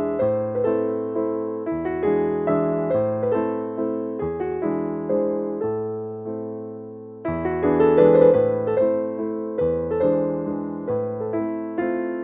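Background piano music: a gentle melody of chords that fades down around six to seven seconds in and comes back louder about a second later.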